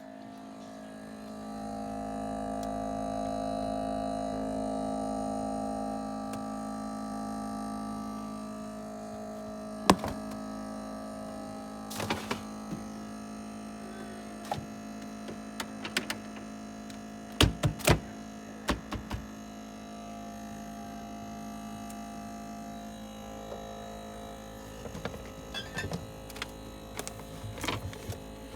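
Refrigerator running with a steady, tonal hum that swells louder over the first few seconds and then settles. Scattered sharp clicks and knocks sound over it, the loudest cluster about halfway through.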